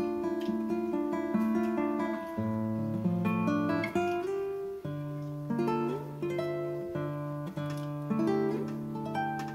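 Background music: a plucked acoustic guitar playing a melody of quick notes over a changing bass line.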